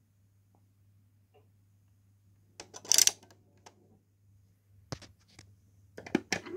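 Plastic clicks and taps from a VTech Gadget learning robot toy being handled, with a short harsh burst of noise about three seconds in and a cluster of clicks near the end, over a faint steady hum.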